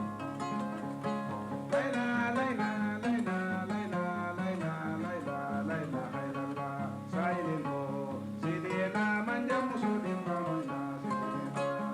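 Kora, the West African 21-string harp-lute, playing a fast repeating plucked accompaniment pattern, with a voice singing long, wavering phrases over it from about two seconds in.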